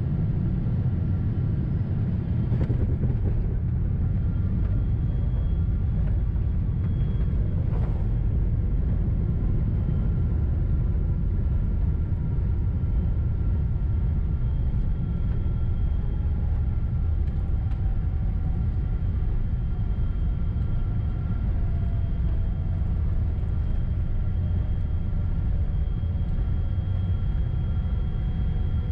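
Boeing 777-200 airliner heard from inside the cabin: a steady, deep rumble of engines and airflow. Over the second half, a faint tone slowly falls in pitch. There are two brief knocks early on.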